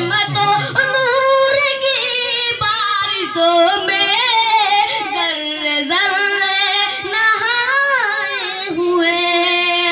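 A boy singing a naat solo with no instruments, in a high voice with long held notes that bend and waver.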